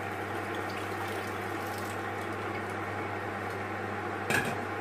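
Cooking water being poured off a pot of boiled potatoes, a steady rushing of liquid over a constant low hum, with a single knock about four seconds in.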